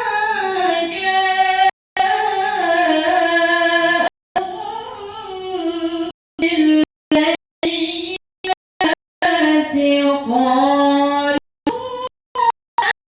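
A woman's voice in melodic Quran recitation (tilawah), drawing out long ornamented notes that rise and fall in pitch. The sound cuts out completely for a split second several times, most often in the second half.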